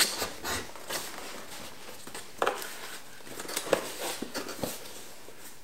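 Cardboard box being opened and handled by hand: scattered rustles, scrapes and taps of the card flaps, a little louder about two and a half and three and a half seconds in.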